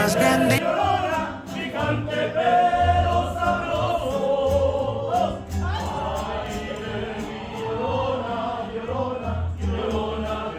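A group of voices singing together in chorus over guitars and slow bass notes: a street estudiantina serenading.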